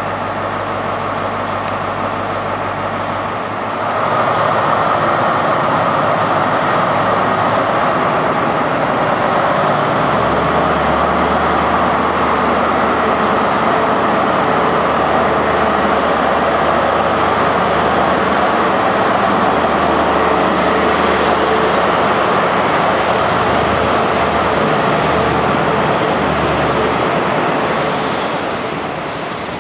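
A Class 43 HST diesel power car idles, then opens up about four seconds in and runs loud under power as the train pulls out and accelerates away. Near the end the engine sound fades and wheel and coach rumble takes over as the carriages roll past.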